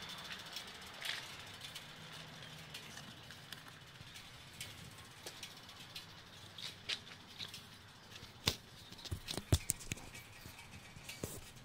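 Handling noise: scattered light clicks and knocks from hands on the camera and the bike's hardware. A quick cluster of sharper clicks comes about eight to nine and a half seconds in, with another near the end, over a faint steady background hum.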